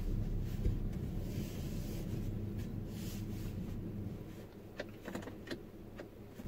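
Low, steady rumble of the car heard inside the cabin. Near the end come a few light clicks and rustling.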